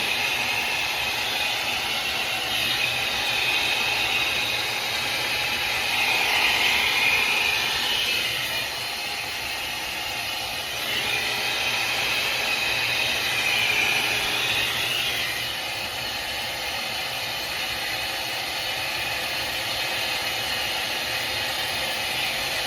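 A LANDOT Plus 2.0 hot air dryer brush running: a steady rushing of blown air over a faint motor hum, swelling and easing slightly at times.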